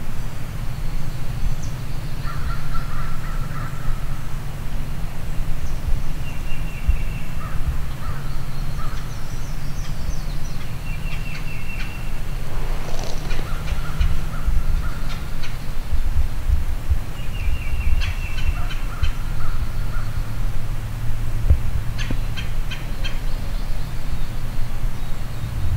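Wild birds calling from the woods edge, with several short repeated songbird phrases and a few sharper, harsher calls, over a steady low hum.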